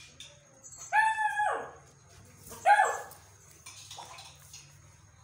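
Beagle puppy barking for food, demanding to be fed because she is hungry: two loud drawn-out yowling barks, the first longer and dropping in pitch at its end, then a faint third bark about four seconds in.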